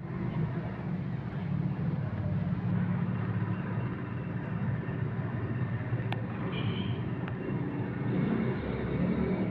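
Wooden toy car's wooden wheels rolling back and forth over a rough floor, a steady low rumble with a couple of light ticks partway through.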